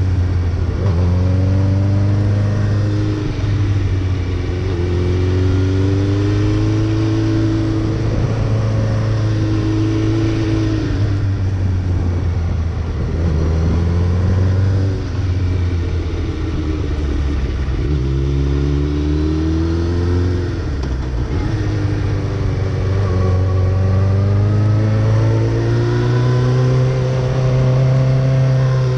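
Suzuki Hayabusa's inline-four engine running hard, its revs rising and falling again and again as it winds through bends, over a steady rush of wind noise.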